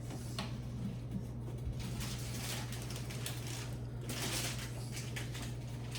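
A steady low hum under scattered soft clicks, with short crackly rustling noises about two seconds in and again about four seconds in.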